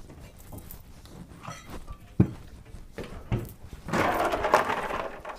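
A sharp knock about two seconds in and a duller thud a second later, then a louder, rough noisy sound lasting about a second near the end.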